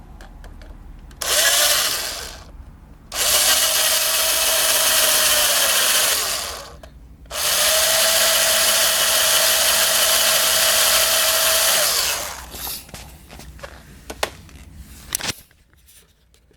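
A drill-like electric power tool run in three bursts, one short and two longer ones of several seconds, its pitch rising as it spins up and then holding steady. A few clicks and handling knocks follow near the end.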